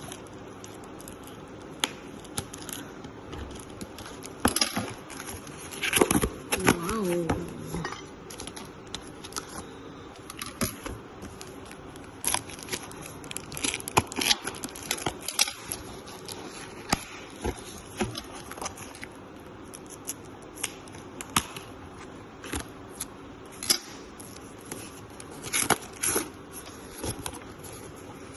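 Irregular clicks, rustles and crinkles of packaging and plastic parts being handled and unpacked, with a short exclaimed "wow" about seven seconds in.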